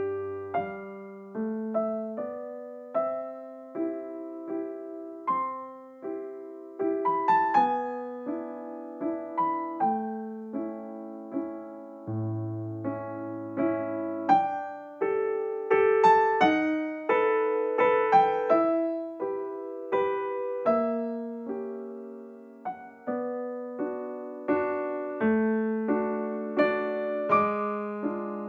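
Background music: a gentle solo piano tune with notes that strike and fade, a melody over a slow low accompaniment.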